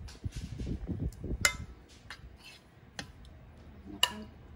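Metal spoon scraping sauce across the bottom of a glass baking dish, with sharp clinks of the spoon on the glass: one about a second and a half in, a fainter one about three seconds in, and another near the end.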